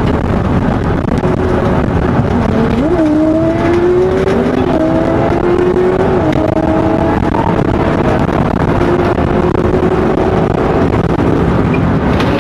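Police cruiser accelerating at high speed, heard from inside the car: steady loud road and wind noise with an engine tone that rises sharply about three seconds in, keeps climbing and steps down a couple of times, like gear changes.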